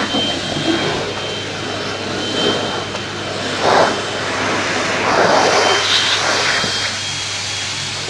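Vacuum cleaner running steadily, a rush of air with a thin high motor whine, swelling briefly a few times as the nozzle is worked, most strongly about halfway through.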